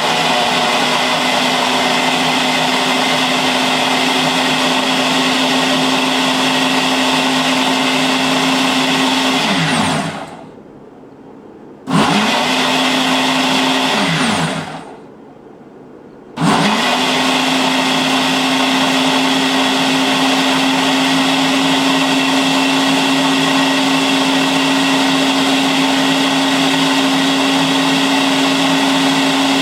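Nutri Ninja Auto IQ blender motor running through an automatic program on a smoothie with ice: it runs steadily for about ten seconds, winds down with a falling pitch and stops. It starts again for a couple of seconds and winds down into a second short pause, then starts once more and runs on steadily.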